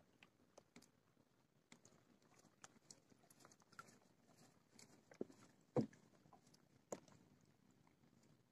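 Near silence broken by scattered faint ticks and taps, the loudest a little before six seconds in.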